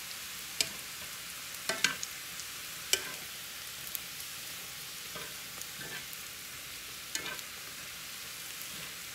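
Burro banana fries sizzling steadily in hot avocado oil in a cast-iron skillet. Metal tongs make scattered sharp clicks against the pan as they turn the fries, every second or so at first, then less often.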